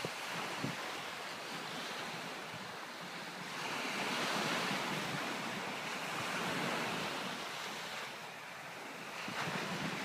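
Small sea waves breaking and washing up a sandy beach, swelling about four seconds in and again around seven seconds.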